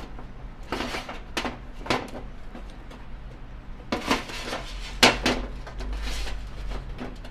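Small metal clicks and clinks from handling a motorcycle chain tool and its parts, several short sharp knocks spread through, the clearest about four and five seconds in, with a brief rustle near the end.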